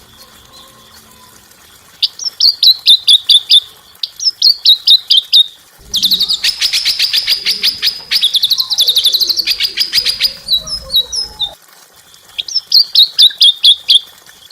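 Small songbird singing short phrases of quick, high repeated notes, with a long, loud, rapid rolling rattle in the middle that lasts about five seconds.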